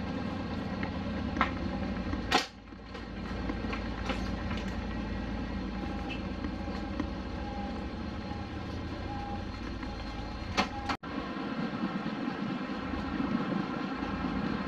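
A vehicle running with a steady low rumble, with a few sharp clicks and a thump about two seconds in. The sound cuts off abruptly for an instant about eleven seconds in, then the rumble carries on.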